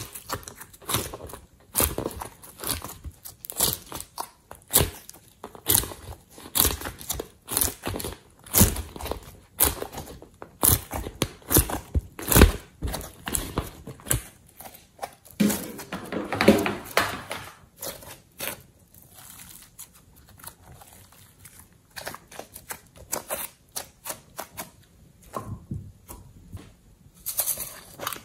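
Hands squeezing and breaking apart pieces of colourful clay, a rapid run of short crackles and crunches that thins out in the second half.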